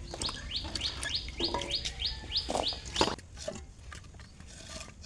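A bird chirping: a quick run of short high chirps, about three a second, stopping after about two and a half seconds, with a few sharp knocks around it.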